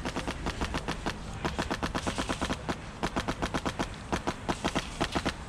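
Airsoft gunfire on full auto: rapid pops, about ten a second, in long strings with a short break about three seconds in.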